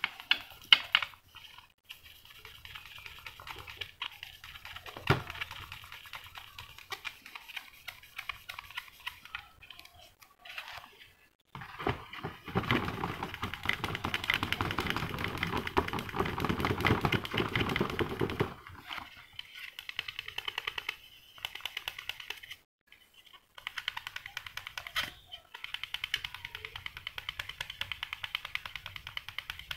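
3M sponge sanding pad rubbed back and forth in quick short strokes over a clear-coated plastic model car shell, a dry scratchy scrubbing with brief pauses and a louder, steadier stretch about halfway through. The pad is levelling dust specks in the clear coat before polishing.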